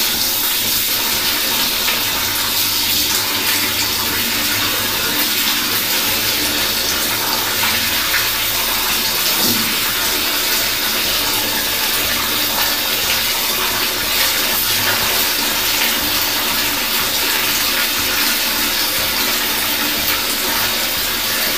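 Steady splashing and sloshing of water as laundry is rinsed by hand in a plastic basin.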